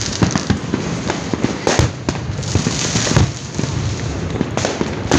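Fireworks going off without pause, a dense run of crackling bangs and pops, with the heaviest clusters about a third, two thirds and near the end.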